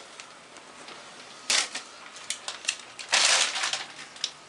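Protective paper wrap being peeled off a new iMac and crinkled: a sharp rustle about a second and a half in, a few light clicks, and a longer crinkling rustle about three seconds in.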